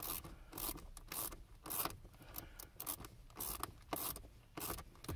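Finger ratchet clicking in short back-and-forth strokes, about three clicks a second, as it snugs down a blower motor's mounting bolts.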